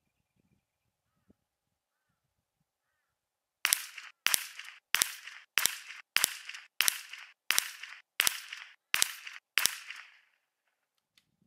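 Ten .22 LR rifle shots from a Tikka T1x UPR bolt-action rimfire, sharp cracks about two-thirds of a second apart, each with a short tail cut off before the next: a 10-shot group edited into quick succession.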